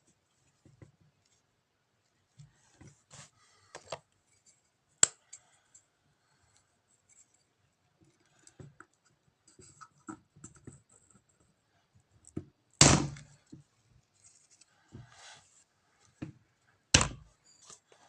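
Tools and metal parts being handled during starter motor repair: scattered clicks, scrapes and light knocks. There is a sharp click about five seconds in, and heavier knocks about two-thirds of the way through and again near the end.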